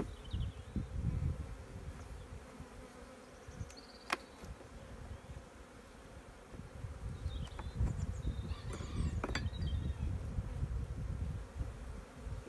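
Honeybees buzzing in a steady drone around an opened hive while frames are handled. There is a low rumble underneath, and two sharp clicks come about 4 and 9 seconds in.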